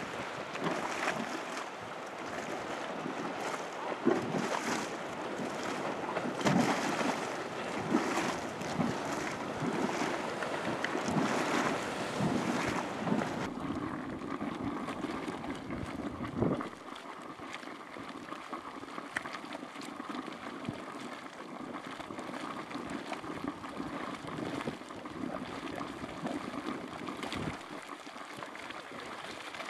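Hot spring water boiling and splashing in a steaming pool, with wind gusting on the microphone. About 13 seconds in it changes to a quieter, steady boiling and gurgling from a small geyser vent, broken once by a short wind thump.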